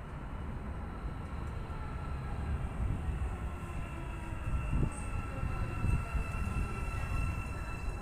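Istanbul metro train running through the bridge station: a low rumble with a steady high electric whine that comes in about two seconds in.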